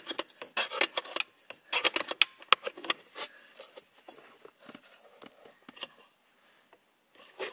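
A 13 mm open-ended spanner clicking and clinking on the nut of the wiper motor crank as the nut is tightened. It starts as a quick run of metal clicks and taps, thins out after about three seconds and dies away near the end.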